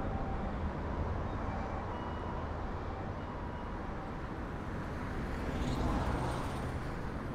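City traffic ambience: a steady, distant road rumble, with one vehicle swelling louder as it passes about six seconds in.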